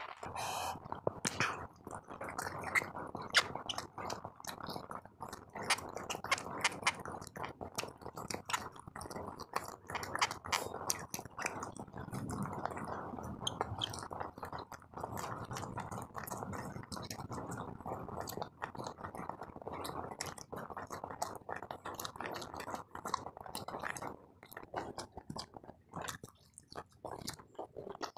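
Close-miked chewing of a mouthful of food, with many small wet mouth clicks and smacks at an irregular pace.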